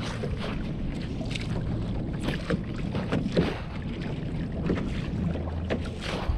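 Small waves slapping against a kayak hull at irregular moments, over a steady wind rumble on the microphone.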